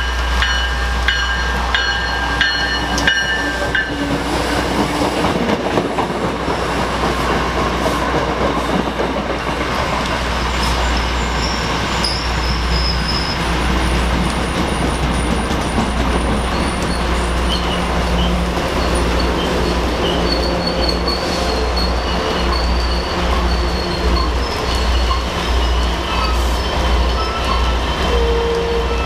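A train passing close by: a steady low rumble of the cars on the rails, with thin high wheel squeals that come and go and a rhythmic pulsing clatter of wheels in the second half.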